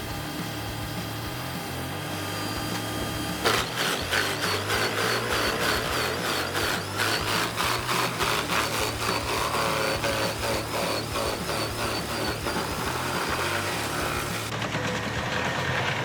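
Large wood chipper running with a steady hum. About three and a half seconds in, a fast, even knocking sets in as wood is fed into the rotating blades, then eases to steadier running near the end.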